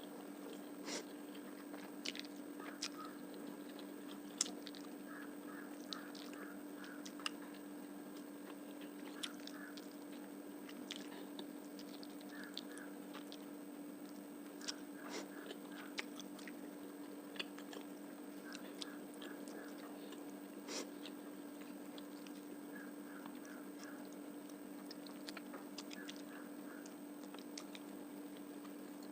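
Close-miked eating sounds of someone chewing and biting a meal of fish curry, rice and onion, with many scattered sharp mouth clicks and small wet ticks, over a steady low hum.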